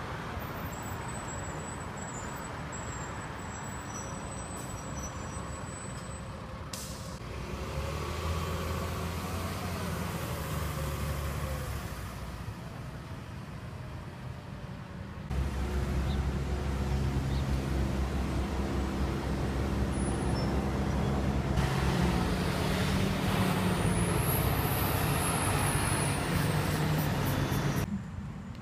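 Orion VII transit buses and road traffic, with the bus engines' low hum as the buses drive past and pull away. The sound changes abruptly several times, and the engine hum is loudest in the second half.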